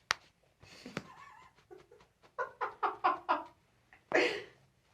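A single sharp crack of a toe joint being adjusted by hand. A couple of seconds later come about five short, high vocal sounds in quick succession, and then a breathy exhale.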